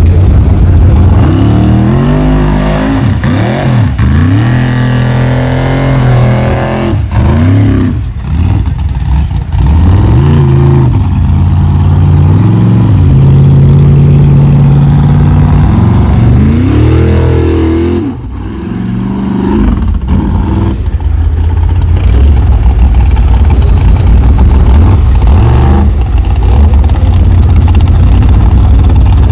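Formula offroad race car's engine revving hard, its pitch climbing and falling again and again as the throttle is worked on and off. The engine drops away sharply about eight seconds in and again about eighteen seconds in, then runs on at a steady loud rumble.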